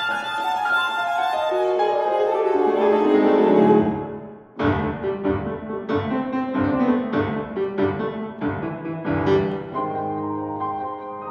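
Viola and piano playing a classical chamber piece together. A fast downward run builds to a loud peak and breaks off briefly, then the music picks up again with a string of sharp accented notes and chords, settling into longer held notes near the end.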